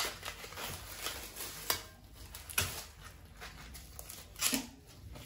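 Fresh sweet corn being husked by hand: the green leaves rustle and tear as they are pulled off the cobs. A few sharper rips stand out, the loudest about four and a half seconds in.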